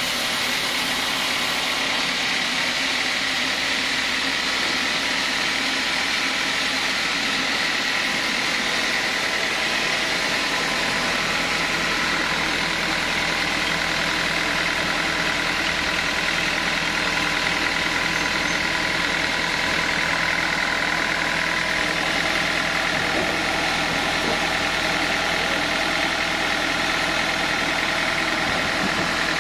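Band sawmill running steadily: a constant mechanical drone with a high, even whine.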